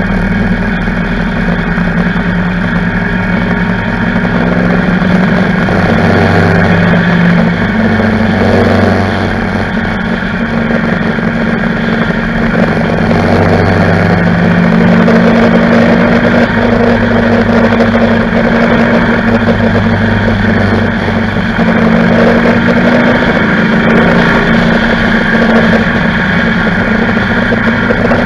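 Motorcycle engine running at road speed, its note stepping up and down a few times with the throttle, under steady wind and road noise.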